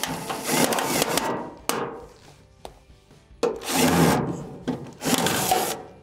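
A cordless drill/driver with a 1/4-inch hex nut driver running sheet-metal screws into a dryer's blower air duct, in three rasping bursts.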